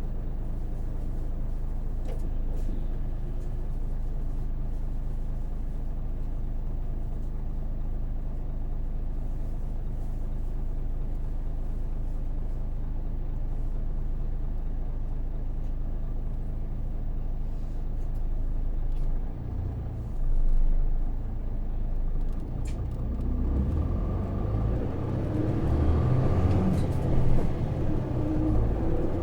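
Hino PJ-KV234L1 city bus with its Isuzu 6HK1 diesel engine, heard from inside the cabin while under way: a steady low running rumble. About two-thirds of the way through, the sound dips briefly and swells, and then the engine grows louder and more uneven as it works harder.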